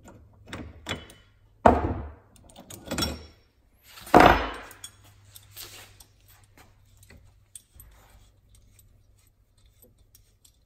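Metal clanks and clatter of a bearing puller and water pump parts being handled and set down on a wooden workbench, with two loud knocks, one near two seconds in and the loudest just after four seconds in, then a few light clinks.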